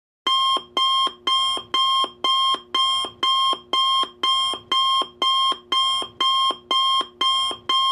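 Electronic timer alarm beeping in a fast, even rhythm of about two beeps a second, starting a fraction of a second in: the signal that the countdown has reached zero.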